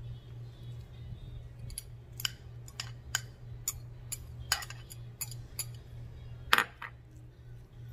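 Metal fork clinking and tapping against a glass mixing bowl while stirring diced onion into shredded chicken, about a dozen irregular clicks with one louder knock near the end, over a steady low hum.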